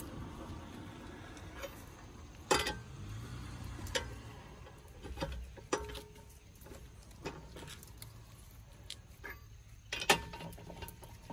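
Four-way lug wrench clinking on steel lug nuts as it is fitted and turned on a car wheel: a few separate sharp metal clinks and knocks, the loudest about two and a half seconds and about ten seconds in.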